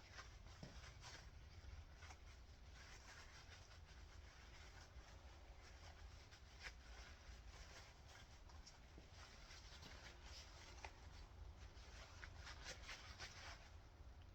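Near silence with a low steady hum and faint scattered clicks and light rubbing of engine parts being handled, a few more of them near the end.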